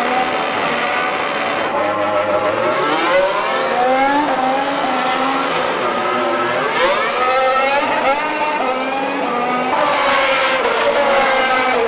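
Several race car engines accelerating together, their pitch climbing and dropping back again and again as they shift up through the gears.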